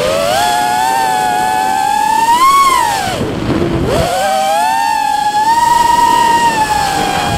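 FPV quadcopter's brushless motors whining, the pitch following the throttle: climbing to a peak about two and a half seconds in, dropping sharply for about a second with a rush of air noise, then rising again, holding steady, and sinking near the end.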